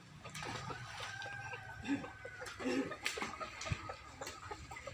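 Chickens clucking, with one long drawn-out call in the first couple of seconds followed by shorter calls.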